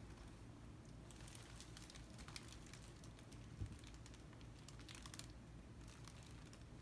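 Near silence: faint scattered clicks and light crinkling of hands handling a wet paint-poured canvas, with one soft bump about three and a half seconds in, over a low steady hum.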